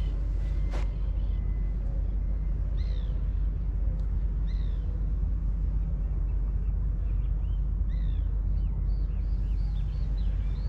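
Birds chirping in short, downward-sweeping calls, a few scattered at first and then a quicker run of them in the last few seconds, over a steady low rumble. A single sharp click comes about a second in.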